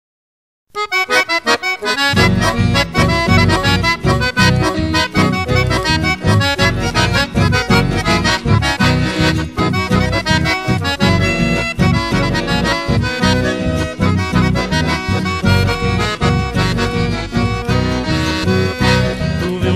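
A moment of silence, then a chamamé song starts with an instrumental opening led by accordion. A steady bass beat comes in about two seconds in.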